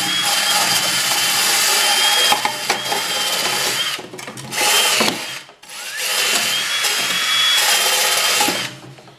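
Cordless drill spinning a wire wheel brush against an aluminum irrigation pipe, scouring the oxidation off the metal, with a steady motor whine over the scrubbing. It runs for about four seconds, stops, gives a short burst, then runs again for a couple of seconds before stopping near the end.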